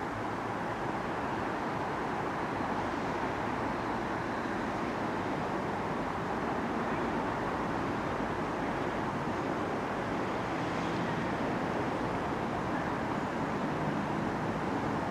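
Steady vehicle noise, with a faint low hum coming in about eleven seconds in.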